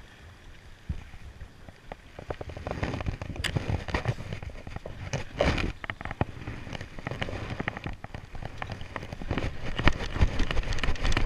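Water sloshing and splashing against the boat's side, with irregular crackling knocks that grow denser and louder from about two seconds in.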